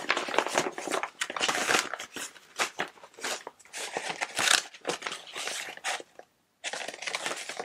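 Hands rummaging through belongings: irregular rustling, crinkling and small knocks, with a brief pause about six seconds in.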